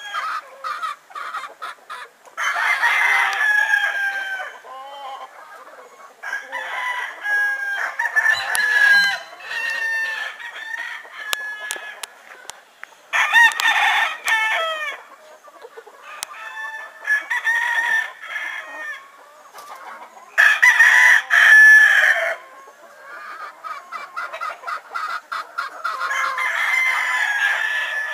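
Roosters crowing repeatedly, a loud call of about two seconds every four to seven seconds, with hens clucking in between.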